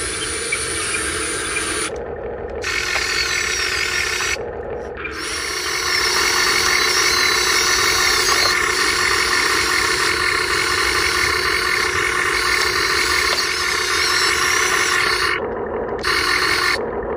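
Radio-controlled dump truck's electric motor and gearbox whining steadily, cutting out briefly a few times and running louder from about six seconds in.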